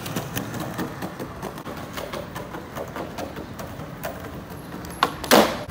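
Skateboard rolling over rough pavement, its wheels clicking and rattling. Near the end comes a sharp pop, then a louder crash a moment later, as the board is popped into an ollie and lands.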